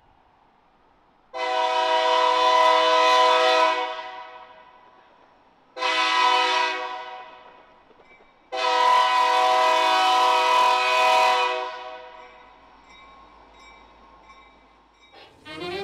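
Diesel locomotive's multi-chime air horn blowing at a street grade crossing: a long blast, a short one, then another long one, each dying away over a second or so. Music comes in just before the end.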